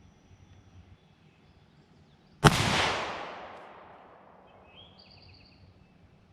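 A single rifle shot about two and a half seconds in, followed by a long fading echo.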